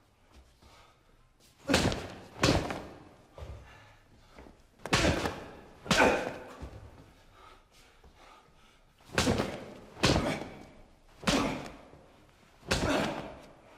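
Eight heavy thuds of blows landing in a hair-pulling fight, mostly in pairs about a second apart, each with a short echo.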